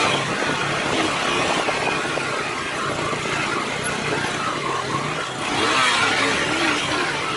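Motorcycle on the move: its engine runs under a steady rush of noise, growing a little louder about five and a half seconds in.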